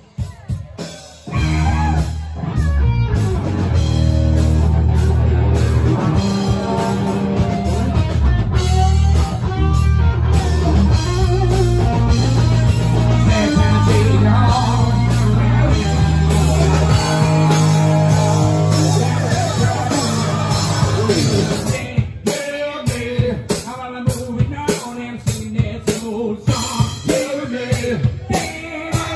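Live rock band playing loudly, with guitar, drums and vocals. Long held chords give way about three-quarters of the way through to a choppier, hard-hit drum beat.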